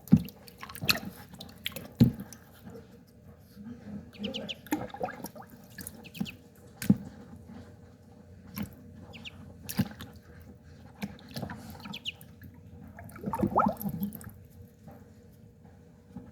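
Water splashing and dripping in a small basin as a Muscovy duckling paddles, with scattered sharp splashes and a busier flurry of splashing about 13 seconds in. A few short, high peeps from the duckling come now and then.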